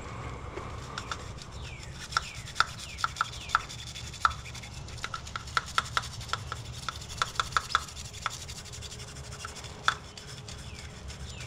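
A thin hand tool scraping and clicking against the throttle-body bores of a BMW E92 M3 engine while they are cleaned. The clicks come irregularly, densest through the middle, with one more near the end, over a steady low hum.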